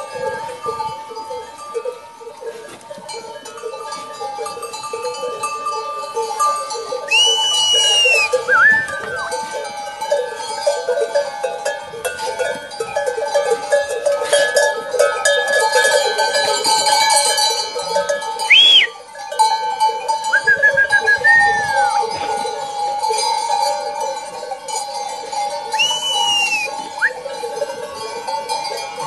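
Many neck bells and small bells on a flock of sheep and lambs clanking and jangling steadily as the animals move. A few short, high calls rise and fall over the bells, the loudest about two-thirds of the way through.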